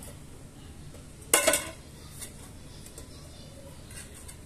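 A brief double clink of small hard objects knocking together about a second and a half in, then a faint click, over a low steady hum.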